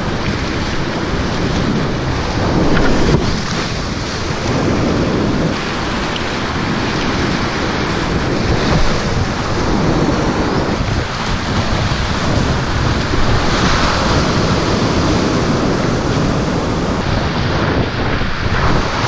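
Whitewater rapids rushing and splashing close around a kayak, a loud steady roar of water that swells and eases as the boat runs the rapid, with wind and spray buffeting the microphone.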